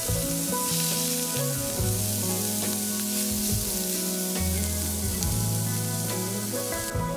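Ground meat sizzling on a hot griddle as it is stirred, a steady frying hiss under background music with a plodding bass line.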